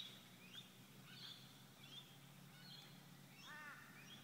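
Faint birds calling: scattered short chirps, and about three and a half seconds in one louder call that rises and falls in pitch, over a faint low steady hum.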